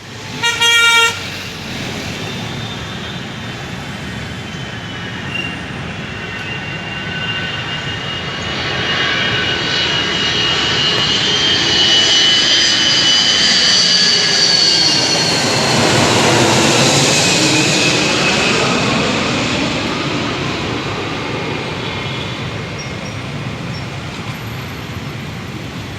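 Twin-engine jet airliner passing close by on its landing approach: the engine roar builds, peaks and slowly fades, and its whining tones slide down in pitch as it goes past. A brief horn-like toot sounds about half a second in.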